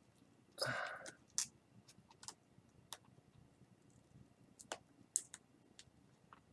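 Faint, scattered small clicks and taps as a replacement laptop display panel is handled and pressed into its frame, with a short, louder hiss-like sound under a second in.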